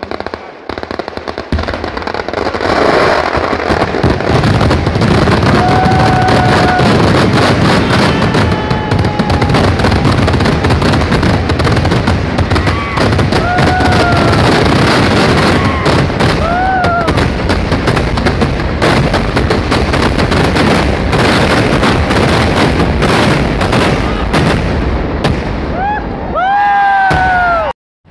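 Festival fireworks and firecrackers going off in a dense, continuous barrage of rapid crackling bangs. Several short whistles rise and fall in pitch, with a cluster of them near the end, and the sound cuts off suddenly just before the end.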